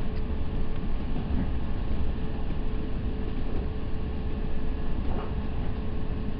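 Steady running noise heard inside an NJ Transit Multilevel (bi-level) railcar moving at speed, a low rumble with a constant hum over it.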